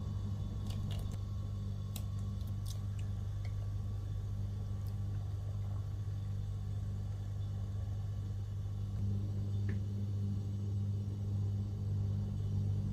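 A steady low hum throughout, with a few light clinks of a metal ladle against small glass bowls in the first three seconds and one more later on.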